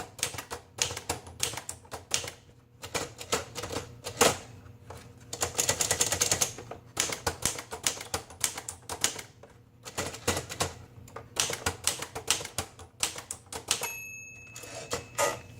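Underwood 378 portable typewriter typing an alignment test: a run of sharp keystroke clacks, faster and denser around six seconds in. Near the end the margin bell dings once and rings on.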